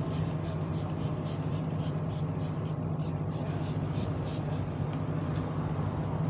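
A steady low hum with an even rushing noise over it that holds at one level throughout.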